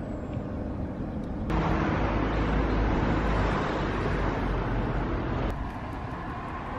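Outdoor town ambience: a steady rush of road traffic noise with no speech. It jumps abruptly louder about a second and a half in and drops back down near the end, as separate recordings are cut together.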